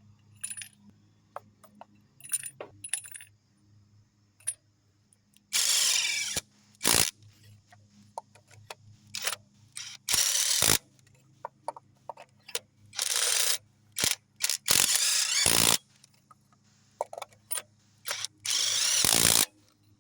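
Ratchet and socket running in new spark plugs: repeated bursts of ratchet clicking, each about half a second to a second long, with sharp metallic clinks of tools in between.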